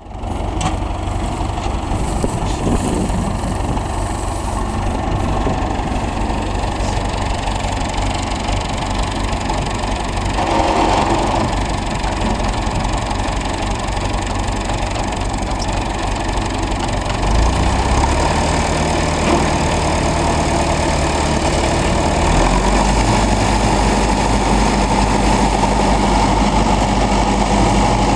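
Engine powering a circular trencher runs steadily, and its note shifts to a new speed twice, a little past halfway and again about five seconds later.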